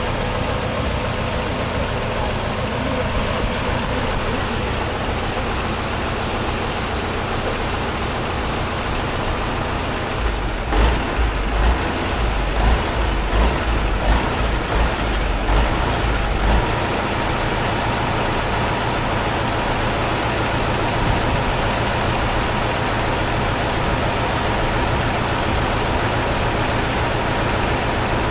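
Diesel bus engine running steadily. About ten seconds in comes a run of heavy low thumps, roughly one and a half a second for about six seconds, with sharp clicks among them.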